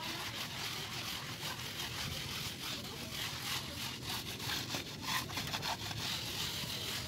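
Plastering trowel scraping and rubbing wet cement render onto a concrete-block wall in repeated strokes: a steady, scratchy rasp.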